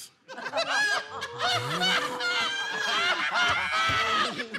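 Several people laughing and whooping together, high shrieks and cackles overlapping, with one voice holding a long cry for about two seconds.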